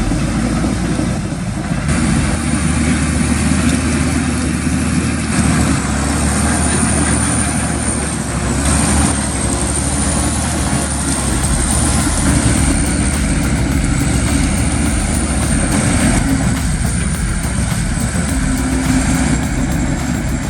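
Heavy diesel machinery engines running hard, with a thin high whine wavering up and down above them. The sound changes abruptly several times.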